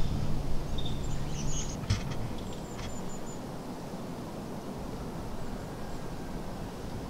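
Outdoor woodland ambience with a steady low wind rumble, a few short high bird chirps in the first three seconds, and a single dull thump about two seconds in.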